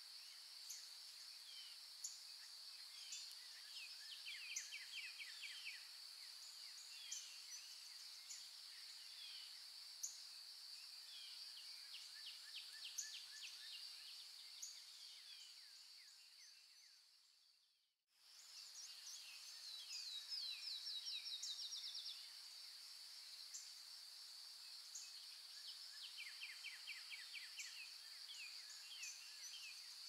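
Forest ambience of birdsong over a steady high-pitched insect drone: scattered short chirps and several fast trills of rapidly repeated notes. A little past the middle the whole sound fades out to silence and then fades back in.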